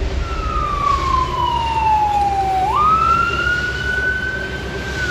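A siren wailing: one slow tone that falls steadily for about two and a half seconds, jumps back up and slowly rises again, over a steady low rumble.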